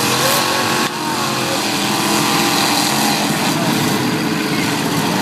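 Demolition derby cars' engines running and revving together, with a loud, steady din and pitches rising and falling.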